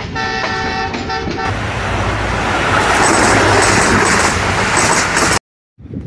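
Intro sound effect: a multi-tone horn chord sounds for about a second and a half and stops abruptly, then a loud rushing noise builds and cuts off suddenly. After a brief silence, much quieter outdoor background sound begins near the end.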